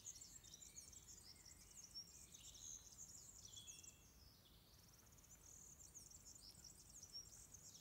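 Faint birdsong: small birds chirping with quick high notes and a short rapid trill.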